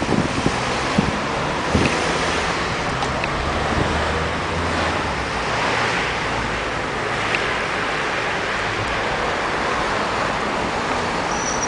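Steady rush of wind on the microphone of a camera carried on a moving bicycle, with car traffic running underneath.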